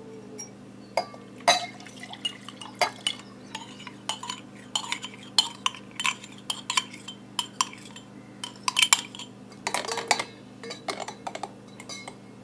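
A spoon clinking irregularly against glassware, many short sharp clinks, some ringing briefly, as a garlic-juice, honey and vinegar mixture is stirred and transferred into a mixer jar.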